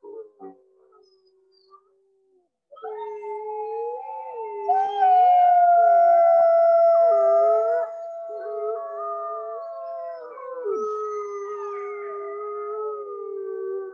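Several gray wolves howling together in chorus, beginning about three seconds in: long overlapping howls at different pitches that bend up and down and run on past the end.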